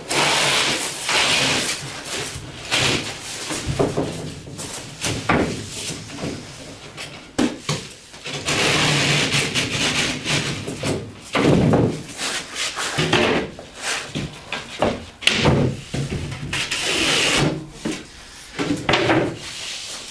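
Sheets of gypsum drywall being handled: the boards scrape and rub against the wall panels and the concrete floor, with irregular knocks and bumps as they are set down and picked up.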